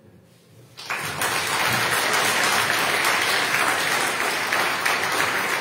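A room of people applauding, starting abruptly about a second in after a brief hush.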